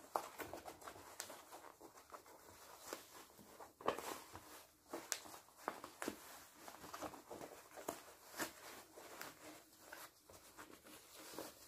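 Faint, irregular rustling and brushing of fabric as a sewn cloth bag is pushed and pulled through the gap in its seam to turn it right side out.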